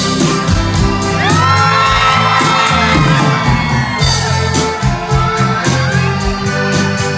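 Live norteño band music with a steady bass line and regular drum beats. A crowd whoops and shouts over it, and a long high voice rises and holds from about a second in.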